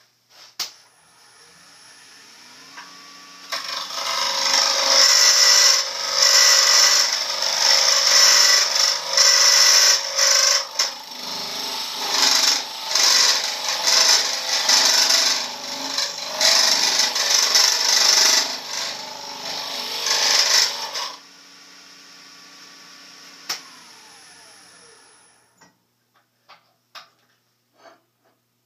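A wood lathe spins up, then a turning gouge cuts the inside of a spinning maple bowl blank: a loud, rough shaving noise that swells and dips for about seventeen seconds. After the cut the lathe hums on briefly and winds down to a stop.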